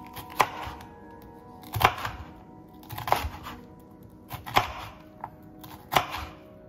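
Background music with a slow, steady beat: a sharp hit about every second and a half over held keyboard-like tones.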